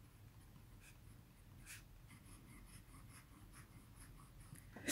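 A TWSBI fountain pen with a broad nib writing on paper: faint, short scratches of the nib, stroke after stroke, as it writes a word and a row of loops.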